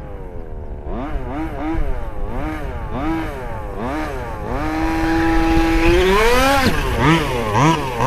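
1/5-scale gas RC buggy's small two-stroke engine revving in repeated short blips, holding a steady high rev for about a second, then climbing sharply to a peak and dropping back into quick blips near the end.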